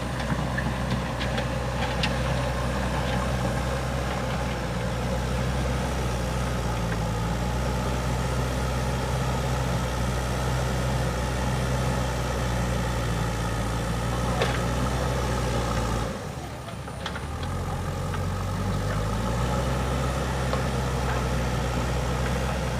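Heavy diesel engine running steadily, with a few short knocks. About sixteen seconds in the sound drops briefly, then the engine note comes back.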